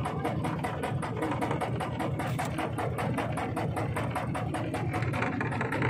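Small boat's engine running steadily under way, with a rapid, even putter of about eight beats a second.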